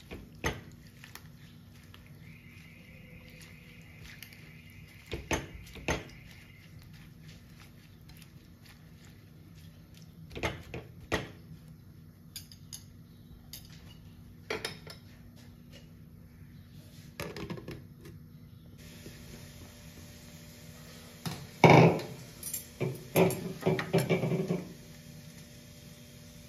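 Slotted spatula knocking and scraping against a non-stick frying pan as bathua leaves are stirred, in scattered short clatters, with a denser run of louder knocks near the end.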